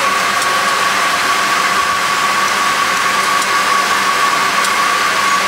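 Steady cabin noise inside a Delta Boeing 767-400 airliner: an even rush of engine and air noise with a steady high-pitched hum on top.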